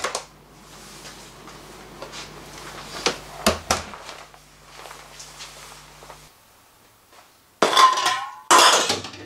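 A door latch clicks open and a few light knocks sound over a steady electrical hum. After a short quiet gap, two loud metallic clattering crashes come near the end.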